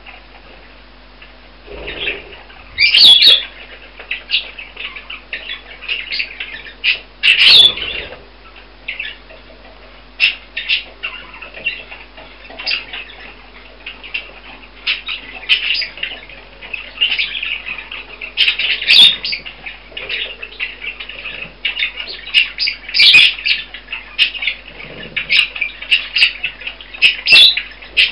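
A flock of budgerigars chirping and chattering, short calls coming thick and fast, with a few louder calls standing out above the rest.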